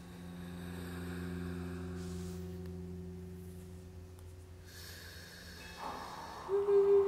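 Quiet electroacoustic music: low sustained drone tones held steady, with a soft hiss of noise over them. About six and a half seconds in, a loud steady tone enters.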